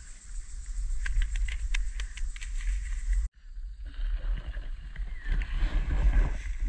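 A quick run of sharp clicks, then, after a brief break, footsteps and rustling as someone pushes through dry scrub and leaf litter, with wind rumbling on the microphone.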